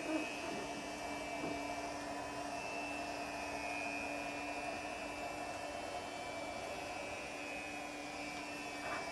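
A small electric motor running steadily, a constant whirring hum with no change in speed, which stops near the end.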